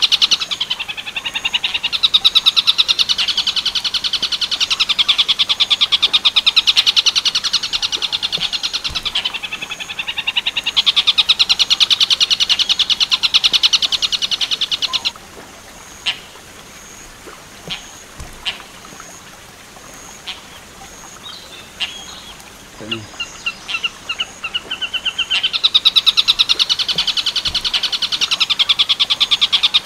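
Tengkek buto (kingfisher) song: long runs of rapidly repeated, high, sharp notes. After about fifteen seconds the song stops for a pause of about ten seconds, broken only by a few faint clicks and a short trill, then resumes near the end.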